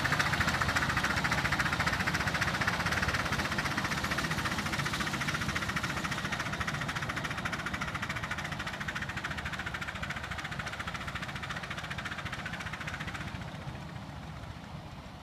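Miniature steam locomotive working a passenger train, its exhaust chuffing in a fast, even rhythm. The sound fades steadily as the train draws away, thinning out near the end.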